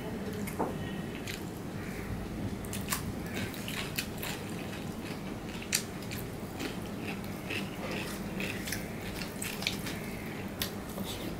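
Close-up eating sounds by hand: fingers mixing rice and vegetables on a steel plate, with chewing and biting, heard as irregular short clicks and smacks.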